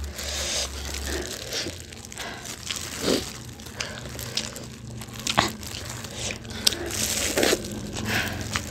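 Thin plastic food glove crinkling as a gloved hand handles saucy food, with scattered sharp clicks and eating mouth sounds.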